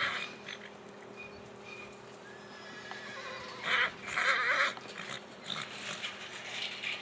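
Horse galloping on grass with muffled hoofbeats, and a loud whinny about four seconds in.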